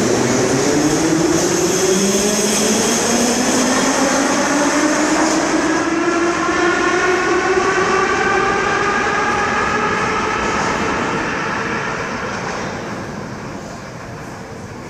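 Metro train pulling out of an underground station and accelerating away: its traction motors whine with several tones rising steadily in pitch over the steady noise of wheels on rails. The sound fades over the last few seconds as the train goes into the tunnel.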